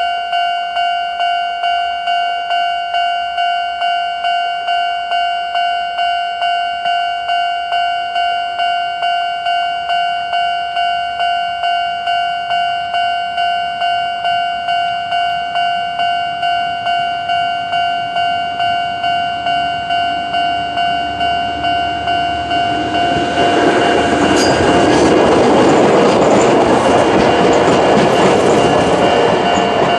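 Japanese level-crossing alarm with the older standard electronic bell tone, ringing 'kan-kan' at a steady, even beat at its normal tempo. From about 22 seconds in, a train comes through the crossing and its passing noise and wheel clatter swell up over the bell, loudest near the end.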